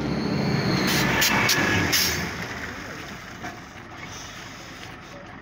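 A motor vehicle passing close by, loudest about one to two seconds in, then fading away.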